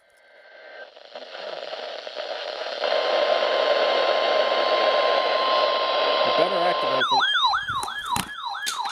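A steady hiss like radio static fades in over the first few seconds and then holds, with a faint steady tone in it. About seven seconds in, an electronic siren starts yelping, its pitch sweeping up and down two or three times a second.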